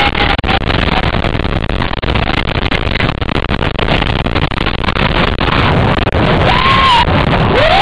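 Wind rushing over the microphone and the roar of a steel roller coaster train at speed, loud and buffeting. A short scream rises near the end.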